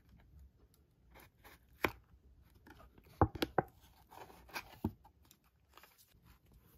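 Hands opening a folded paperboard takeaway box: scattered sharp paper clicks and taps as the flaps are pulled open, loudest in a quick cluster about three seconds in.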